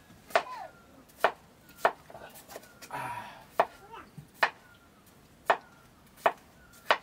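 Kitchen knife chopping raw potato on a wooden cutting board: about eight sharp, separate chops at an uneven pace, under a second apart, each knocking through to the board.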